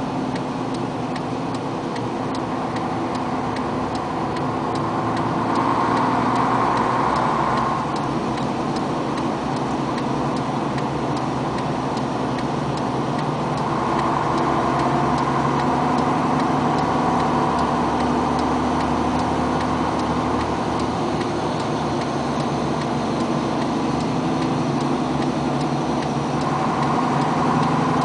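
Engine and road noise of a vehicle driving at steady speed through a tunnel, heard from inside the vehicle, with a steady light ticking over it. The rushing noise swells three times, about six seconds in, around the middle and near the end.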